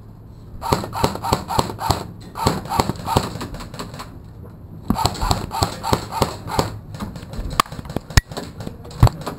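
Airsoft rifle fire: three short strings of sharp cracks and knocks, about five or six a second, each lasting a second or two, then a few single sharp clicks near the end.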